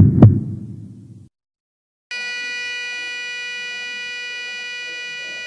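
A heavy double heartbeat thump that dies away, then after a second of silence a continuous flat electronic beep tone: a heart monitor flatlining, the sign of a heart that has stopped.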